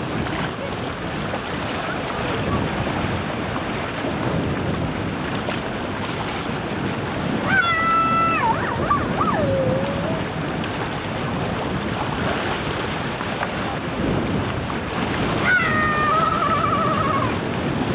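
Wind buffeting the microphone over choppy lake water lapping at a rocky shore, a steady rush of noise. A high voice calls out twice: once about halfway through and again near the end, each call long and held.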